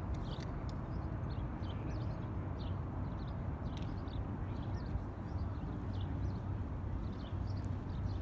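Outdoor city ambience: a steady low rumble of downtown traffic, with short high chirps of small birds repeating throughout and a few faint clicks.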